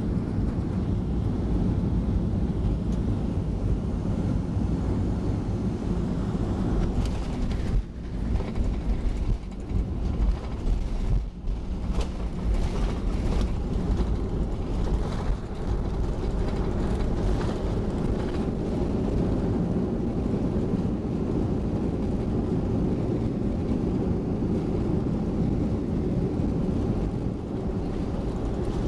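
Boeing 737-400 cabin noise on landing: a steady low rumble of engines and airflow, with a stretch of irregular knocks and jolts from about 7 to 16 seconds in.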